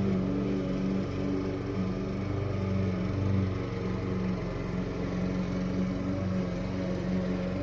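Small gasoline engine running steadily at a constant speed, with slight wavers in level.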